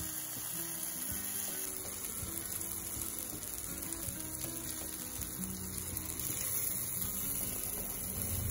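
Pork yakisoba and okonomiyaki sizzling steadily on a hot iron teppan griddle, with soft background music.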